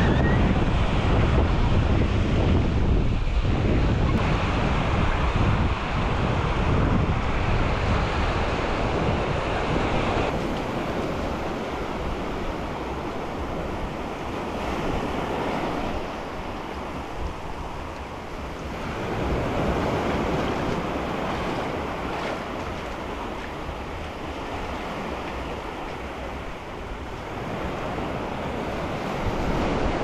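Small waves washing in and out on a sandy shore, swelling and easing every few seconds, with wind buffeting the microphone as a low rumble that is strongest in the first third and then eases off.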